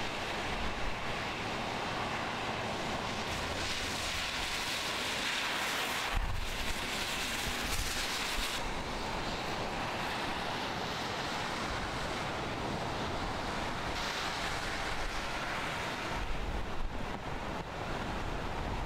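Heavy storm surf breaking, with strong wind rumbling on the microphone in gusts. The sound changes abruptly a few times.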